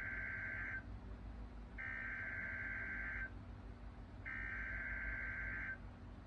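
NOAA Weather Radio's EAS/SAME digital header: three bursts of data tones, each about a second and a half long and about a second apart. They mark the start of a new alert broadcast.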